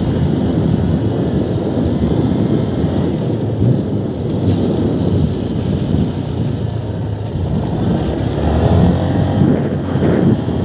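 Wind buffeting the microphone over the engine and tyre noise of a motor scooter being ridden, a loud, rough, uneven rumble.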